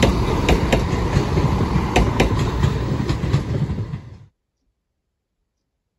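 Passenger train passing close by: a loud steady rumble with sharp clicks from the wheels on the rails, several a second. It stops abruptly about four seconds in.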